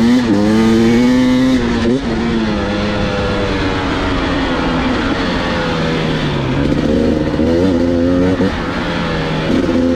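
Two-stroke enduro dirt bike engines running and revving. The pitch rises and falls with throttle blips in the first two seconds and again near the end, over a steadier lower engine note.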